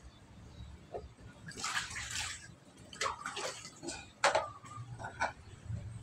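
Dishes being washed by hand: water splashing and scrubbing, with plates and bowls knocking against each other now and then, the sharpest clink about four seconds in.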